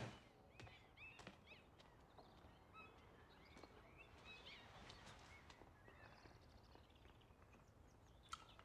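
Near silence: faint room ambience with scattered, quiet bird chirps.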